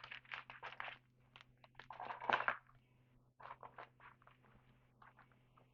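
Trading cards and their plastic pack wrapper being handled: quick soft crinkles, rustles and clicks, with a louder rustle a couple of seconds in, growing sparser near the end, over a faint steady hum.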